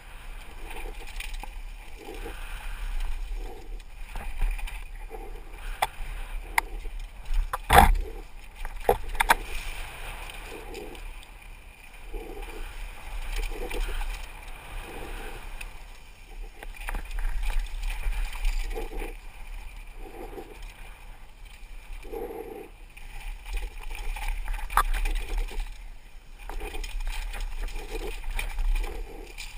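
Mountain bike descending a dry dirt and rock trail, heard from a helmet camera: a rushing of wind and tyre noise that swells and eases, with frequent rattles and clacks from the bike over bumps. The loudest is a sharp knock about eight seconds in.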